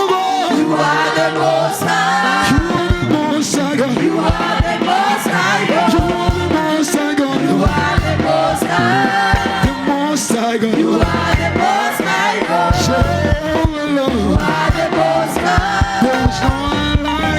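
Gospel praise and worship music: a live band with drums playing under voices singing together.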